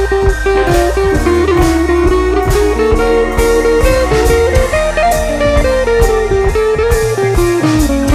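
Background music: an instrumental track with a melody line moving over a steady bass and an even beat.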